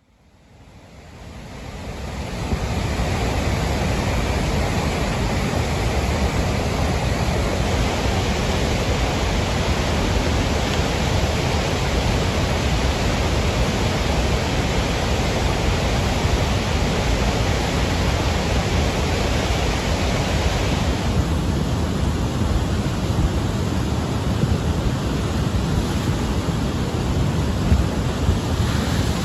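Floodwater in a swollen river, rushing and churning in a steady, dense noise. It fades in over the first couple of seconds, and the hiss on top thins about two-thirds of the way through.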